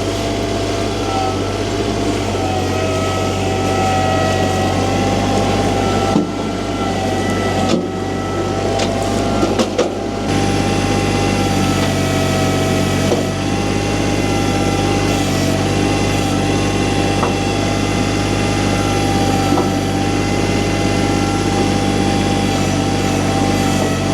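Kubota tractor's diesel engine running steadily with a steady whine over it; the engine note shifts briefly about 6 and 10 seconds in.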